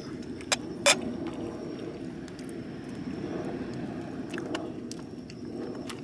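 Steady low rumble of outdoor background noise, with two sharp clicks about half a second and a second in and a few fainter ticks later.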